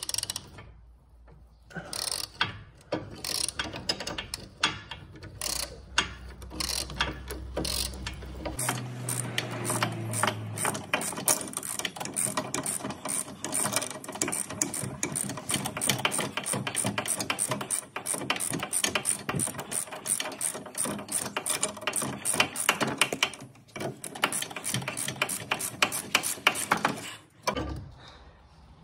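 Ratchet wrench clicking as it turns the nut off a BMW X3 F25 sway bar link's ball stud, with the stud held still by a T40 Torx bit. The clicks come singly at first, then run fast and even from about nine seconds in, stopping shortly before the end.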